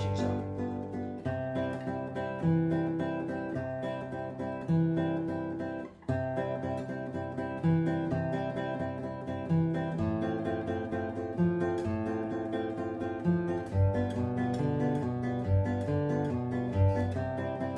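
Acoustic guitar fingerpicked in a steady, repeating arpeggio pattern over changing bass notes: a basic right-hand fingerpicking exercise. The playing cuts off briefly about six seconds in, then picks up again.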